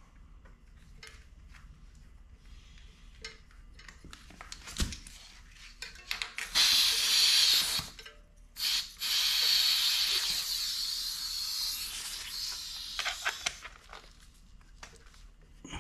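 Air hissing out of a bicycle tyre valve as the inflator's hose is screwed onto it: a loud hiss of about a second and a half, then, after a short break, a longer hiss that fades out over about four seconds, letting pressure out of the tyre. Light handling clicks and taps come before it.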